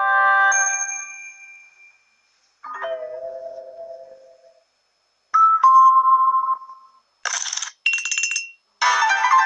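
Samsung Galaxy Note 9 ringtone and notification sounds played one after another: about five short electronic chimes and tones, each a second or two long, with brief silent gaps between them. Two of them in the second half are brighter and buzzier than the rest.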